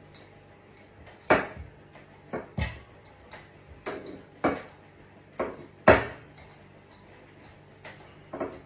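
Wooden rolling pin knocking and rolling on a wooden table as a round of flatbread dough is rolled out: a series of irregular sharp knocks, a few of them louder.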